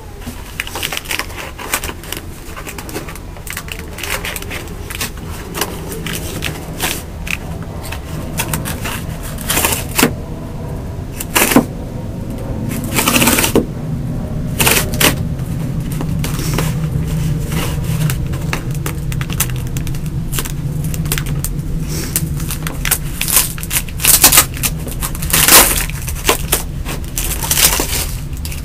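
Cardboard shipping box being handled and torn open: a run of sharp crinkles, taps and scrapes, with a longer tearing sound about halfway through and another near the end, over a steady low hum.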